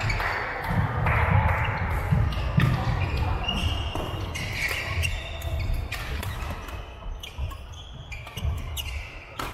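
Badminton rally: racket strings striking the shuttlecock in sharp knocks, and players' footsteps thudding on a wooden court, echoing in a large sports hall. Voices carry faintly from around the hall.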